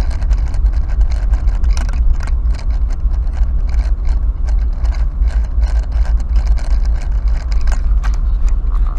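Car driving slowly, heard from inside the cabin: a steady low road and engine rumble with frequent irregular clicks and rattles over it.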